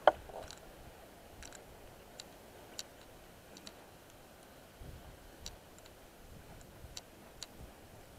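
A loud sharp click at the very start, then faint sharp ticks at irregular intervals, about one every half second to a second, over low background hiss.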